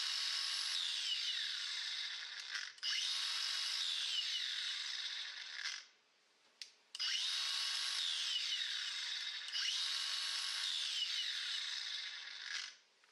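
Milwaukee 18 V cordless angle grinder spinning freely with no load, switched on and off in short runs. Each run lasts two to three seconds as a steady high whine, then falls in pitch as the disc coasts down. It restarts three times, once after a second of silence with a click. The on/off switch is being tried, which the owner says sometimes sticks.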